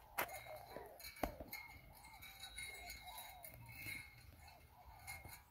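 Faint countryside background: short rising-and-falling animal calls repeated every half second or so over a steady high whine, with two sharp clicks, one just after the start and one about a second and a quarter in.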